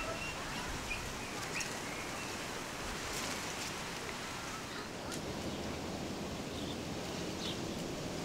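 Birds chirping in short, scattered calls over a steady outdoor background hiss.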